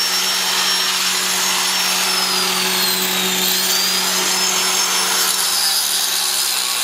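A power tool running steadily, with a loud hiss and a high whine that sags in pitch about two to three and a half seconds in, then climbs back.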